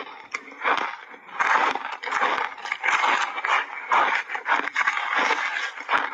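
Close-miked crunching and chewing of a mouthful of refrozen shaved ice with milk powder: a rapid, uneven run of crisp crunches that grows louder after about a second and a half.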